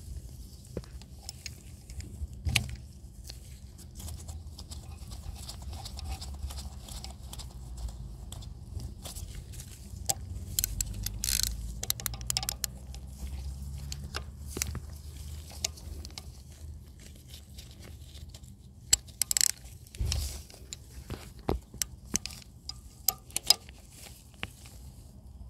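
Small metal clicks and knocks from a wrench working a fuel-line union nut onto a fuel injector, irregular and scattered, with a few sharper knocks. A low steady hum runs underneath.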